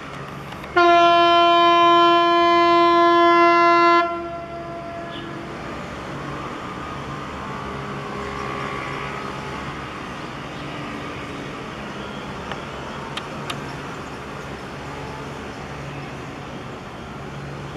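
BigLift heavy-lift ship HAPPY ROVER's whistle sounding one steady blast about three seconds long, starting about a second in and trailing off in a short echo, the ship's greeting signal on entering port. After it, steady background noise.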